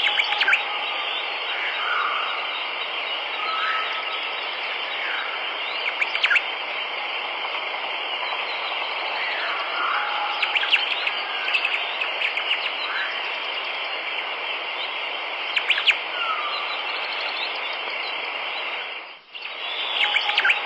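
Birds chirping, with short rising and falling calls and quick trills scattered over a steady, hissy outdoor ambience. The sound dips out briefly near the end, then returns.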